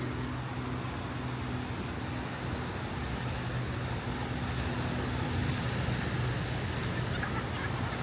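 Outdoor ambience: a motor engine's steady low hum, fading over the second half, over a constant noisy wash of traffic and surf.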